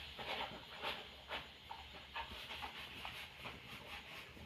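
Small knife scraping seeds and cutting through soft, ripe papaya flesh: a faint wet scraping with irregular small clicks of the blade and seeds.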